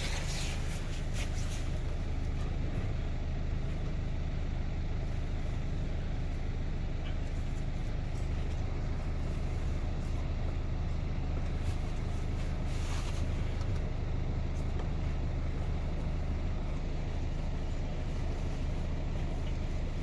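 Steady low running hum of a vehicle, with a few light clicks and rustles in the first two seconds and again about thirteen seconds in, as the old cabin air filters are worked out of their housing.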